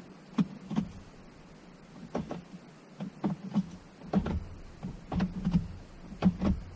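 Subaru WRX STI manual gear lever being shifted through the gears, with a run of short notchy clicks and clunks as it moves through the gate and drops into each gear, often two or three in quick succession.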